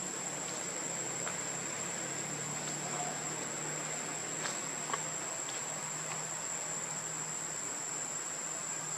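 Insects shrilling steadily in one high, continuous note, with a couple of soft clicks near the middle.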